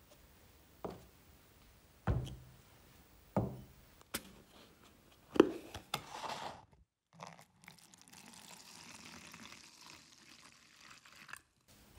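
Plastic measuring cups knocking down onto a plywood worktop, with a sharper clack about five seconds in. Then kerosene pours into a plastic measuring cup, splashing steadily for about four seconds before it stops.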